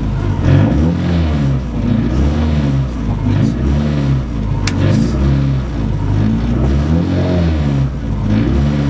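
Peugeot 106 Group A rally car's engine blipped over and over while the car sits still, the revs rising and falling about once a second as it is held ready at the stage start. A single sharp click is heard about halfway through.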